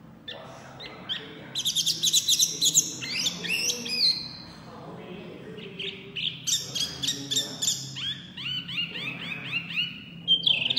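Caged hwamei ("wambi mini") singing loudly, with fast runs of repeated high whistled notes. The song comes in two long phrases with a short pause about halfway through.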